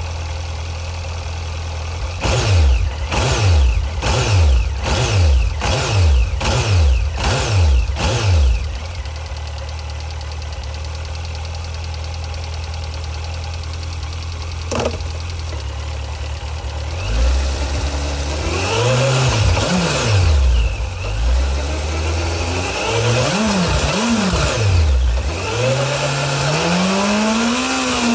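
Suzuki GSX1250FA's inline-four engine idling, then blipped in about six quick revs, settling back to idle before longer, slower rises and falls in revs near the end. It is running on fresh oil just after an oil and filter change.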